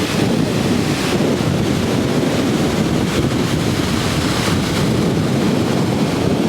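Wind buffeting the microphone in a loud, gusty rumble.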